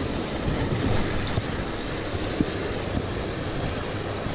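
Wind buffeting the microphone over the steady wash of ocean surf, with one short click about two and a half seconds in.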